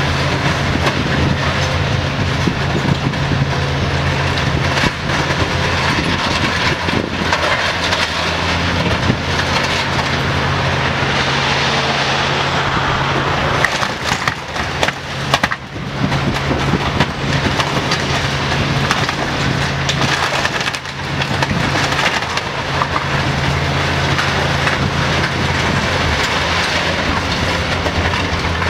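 Demolition excavators tearing up a 2000 class 'Jumbo' diesel railcar's body: continuous crunching, cracking and tearing of the car's structure, over the steady drone of the excavators' diesel engines. The crunching eases briefly about halfway through.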